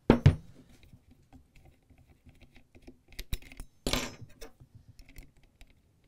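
Clicks and clacks of a steel DeWalt oscillating-tool blade being handled and fitted into the quick-change blade clamp on a Milwaukee M18 multi-tool head. A loud clack comes right at the start, then scattered light ticks, with a sharper click and a short rattle about three to four seconds in.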